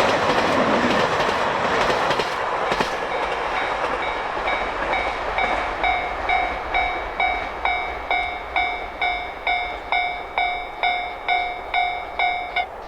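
A train passing over the rails, its rushing noise fading over the first few seconds. Then a Japanese level-crossing warning bell rings a steady kan-kan, about two strikes a second. The bell stops suddenly near the end, as the crossing clears after the train has passed.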